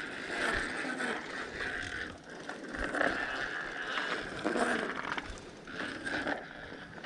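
Bicycle freewheel ratcheting with a steady, fast ticking as the bike coasts.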